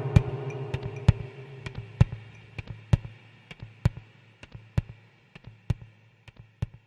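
Outro of a minimal techno track: a low sustained drone with a few higher steady tones fades away, while sparse, irregular sharp clicks keep sounding over it until the music is nearly gone.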